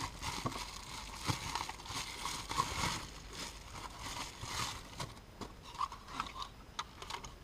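Packaging crinkling and rustling, with scattered light clicks, as a new replacement power window master switch is unpacked and handled.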